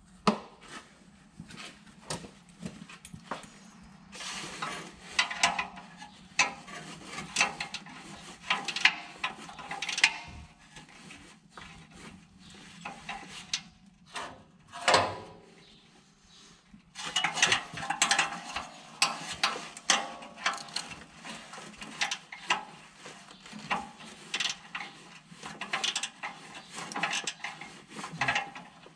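Hand ratchet wrench clicking in spurts as fasteners are turned, along with tool and metal handling knocks, over a steady low hum.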